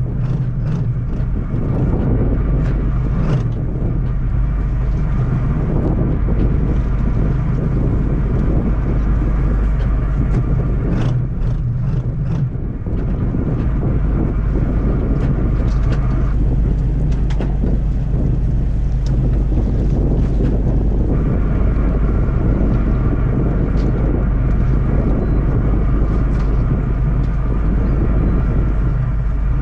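Fishing boat's engine running steadily, with wind buffeting the microphone. A higher steady hum cuts out about 16 seconds in and comes back about five seconds later, and there are scattered light clicks and knocks.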